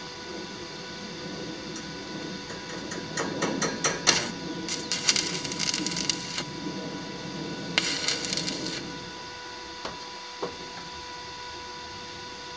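Steel pieces being handled in a container workshop: a run of clicks and rattles, two stretches of scraping about a second long each, then two single knocks, over a steady faint hum.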